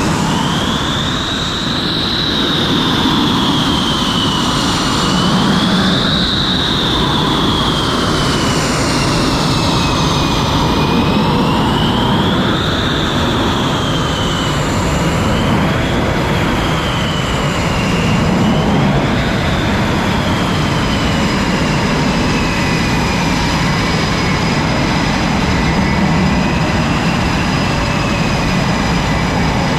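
Jet engines running on a carrier flight deck: a loud, steady roar with a high whine that rises and falls slowly as the power changes.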